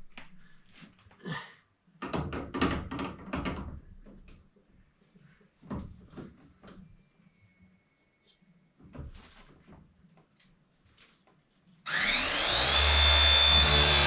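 Scattered knocks and clicks of pipe and fittings being handled. Then, about twelve seconds in, a battery-powered copper pipe press tool's motor starts suddenly and runs loud and steady, its pitch shifting near the end as it crimps a fitting onto the copper pipe.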